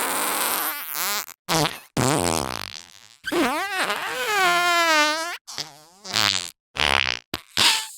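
A run of cartoon fart sound effects, one after another, about nine in all. A long fart in the middle lasts about two seconds and wobbles up and down in pitch, and several short quick ones follow near the end.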